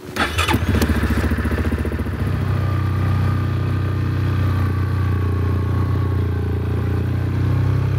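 ATV engine running as the four-wheeler drives through snow. It pulses unevenly with the throttle for the first couple of seconds, then runs steadily at an even pitch.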